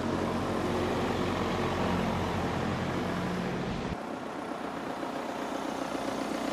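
Car driving: a steady engine hum and road noise. The deep low rumble drops away abruptly about four seconds in, while the lighter road noise carries on.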